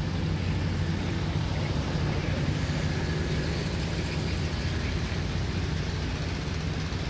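Steady low engine drone, running evenly with no change in speed.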